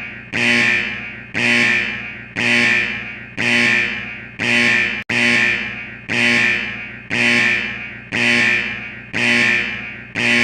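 Digital alarm-clock tone sounding at the end of a three-minute countdown: a bright, sharp-edged chime repeating about once a second, each note fading before the next one starts.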